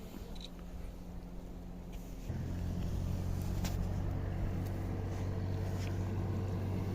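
An engine running with a steady low hum that gets louder about two seconds in, with a few faint clicks over it.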